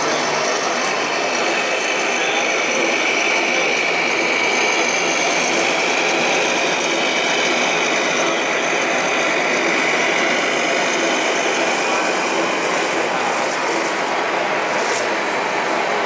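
A radio-controlled model Mercedes-Benz Actros truck driving, its electric drive motor and gearbox giving a steady high whine over a continuous mechanical noise.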